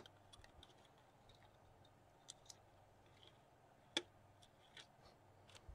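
Near silence with scattered faint clicks and taps from hands handling a magnetic-field viewing film and a small magnet, and one sharper click about four seconds in.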